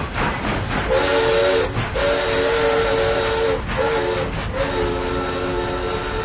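Steam locomotive whistle sounding a chord of several notes in four blasts: a short one, a long one, another short one, then a long one. Escaping steam hisses during the first two blasts.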